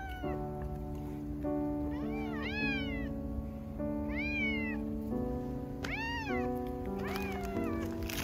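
A domestic cat meowing about four times, each a drawn-out call that rises and falls in pitch, over background music with held notes.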